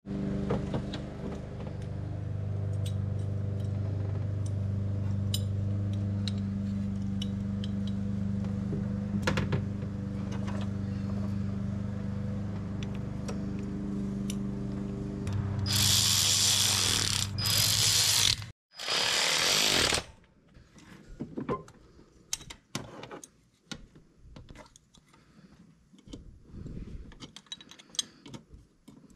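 A motor-driven tool runs steadily with a low hum and cuts off suddenly about 18 seconds in. Two loud bursts of hissing come near the end of its run and just after it, then light clicks and ticks follow.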